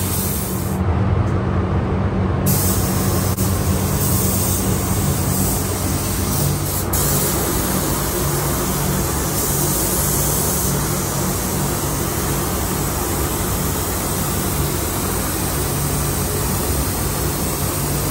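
Gravity-feed paint spray gun hissing steadily as it sprays sealer onto a truck cab, over a steady low hum of the paint booth's air handling. The hiss drops out briefly about a second in, then carries on.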